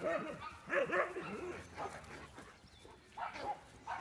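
Dogs barking in short bursts as they play: a few barks near the start, more around a second in, and again near the end.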